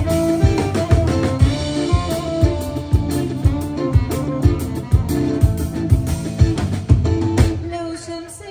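Live band music: sustained pitched instrument notes over a steady drum beat, dropping in loudness near the end.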